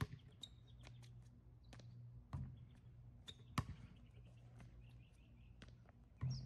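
A basketball bouncing on an outdoor concrete court: faint, scattered thuds and sharp knocks, the sharpest about three and a half seconds in, over a steady low hum.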